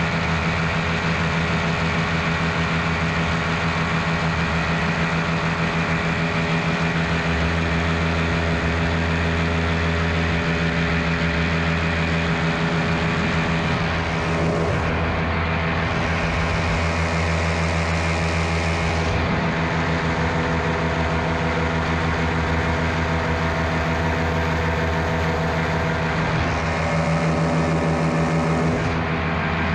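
Miniplane Top 80 single-cylinder two-stroke paramotor engine and propeller running steadily, its note shifting slightly about halfway through.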